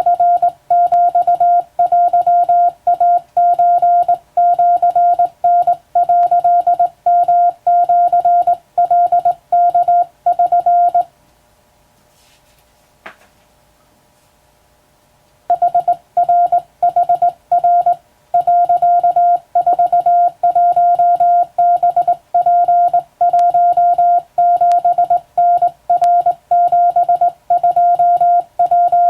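Hand-keyed Morse code: a single steady mid-pitched tone switched on and off in dots and dashes, sending Japanese wabun telegram text. Midway the keying stops for about four seconds, broken by a single click.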